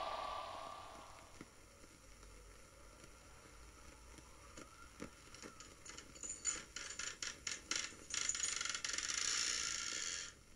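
Irregular mechanical clicks and rattles, then a steady hiss of about two seconds that cuts off suddenly.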